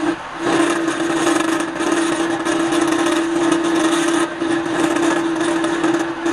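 Wood lathe spinning a wooden cylinder while a flat turning tool cuts it. There is a steady droning tone under the rough scraping of the cut, and it breaks off briefly just after the start.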